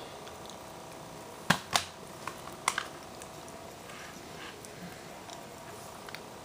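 Quiet room tone with a faint steady hum, broken by a few sharp clicks: two close together about a second and a half in, and another near three seconds.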